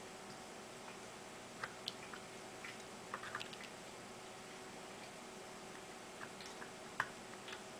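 Faint, scattered small clicks and crackles as a soldering iron and solder wire work the pins on the underside of a circuit board. They come in small clusters, the sharpest just after seven seconds, over a steady faint hiss and hum.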